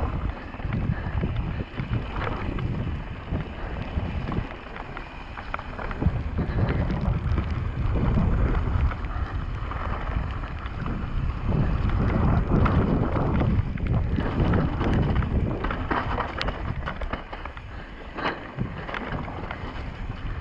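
Wind buffeting the action camera's microphone during a fast mountain-bike descent, with tyres rolling over wet gravel and mud and the bike rattling over the rough trail.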